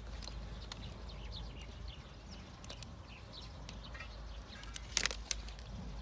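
Small birds chirping now and then, with one sharp snap about five seconds in as hoof nippers bite through a donkey's overgrown hoof wall.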